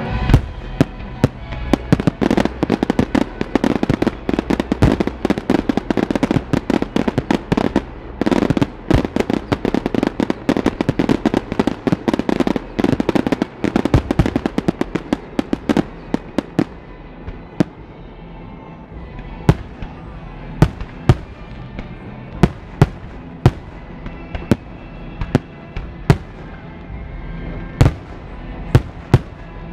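Fireworks display: a dense barrage of bangs and crackle for about the first half, thinning to single loud bangs every second or so, with music playing underneath.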